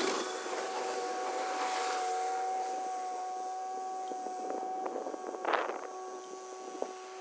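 Yanmar F195 compact tractor running steadily with its rotary tiller working the soil, heard from a distance as a steady mechanical drone with a whining tone. A brief rushing noise about five and a half seconds in.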